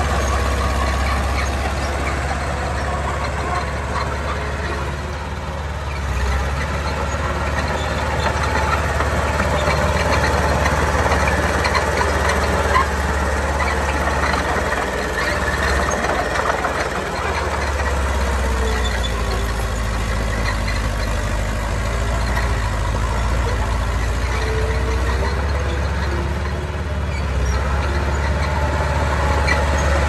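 Heavy diesel construction machinery running steadily, with scattered clanks and rattles over the engine.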